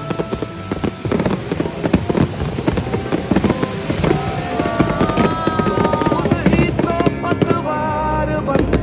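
Fireworks going off in a rapid run of bangs and crackles, with a Hindi song playing over them.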